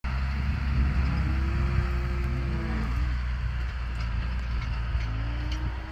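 A tractor engine running steadily with a low hum, while cattle moo twice in long, drawn-out calls, one about a second in and another near the end.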